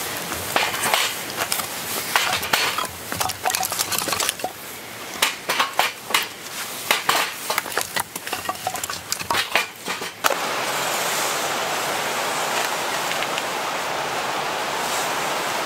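Split pine firewood knocking and clattering, pieces of wood against each other and against a metal fire pit as they are handled and stacked, in quick irregular knocks for about ten seconds. Then the knocks stop abruptly and a steady hiss continues.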